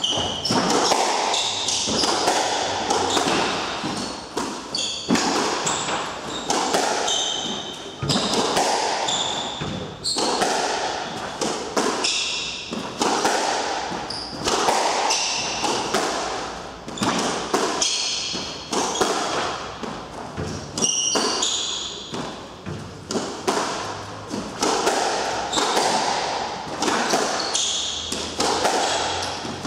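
Squash rally: racket strikes and the ball smacking the court walls, about one hit a second, echoing around the court, with short squeaks of shoes on the wooden floor between the hits.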